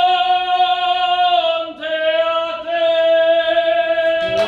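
A man singing one long, high held note that dips slightly in pitch about a second and a half in and then holds again. Near the end a second, lower voice comes in with sharp clicks.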